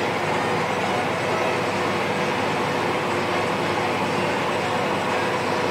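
Massey Ferguson 7626 tractor's six-cylinder diesel engine running steadily under way, heard from inside the cab as an even, unbroken drone.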